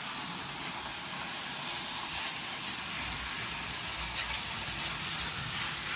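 Small electric model trains running on the track: a steady whirring hiss of motors and wheels, with a few light clicks.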